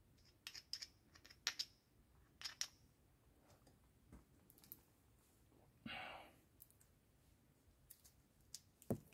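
Faint scattered clicks and taps of a new brake pad being handled and slotted into the rear brake caliper bracket, most of them in the first three seconds, with one brief scrape about six seconds in and a small knock near the end.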